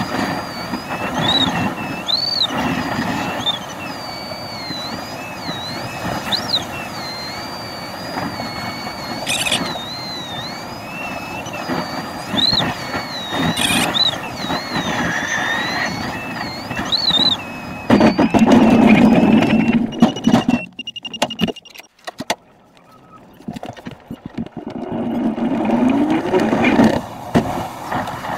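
Sailplane cockpit: a steady rush of airflow over the canopy, with an electronic variometer's audio tone wavering up and down in pitch as the glider climbs and sinks. About eighteen seconds in, a loud low rush lasts a couple of seconds, and then the sound briefly falls much quieter.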